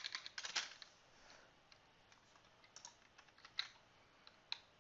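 Computer keyboard typing: a quick run of keystrokes in the first second, then a few single clicks spaced out over the rest.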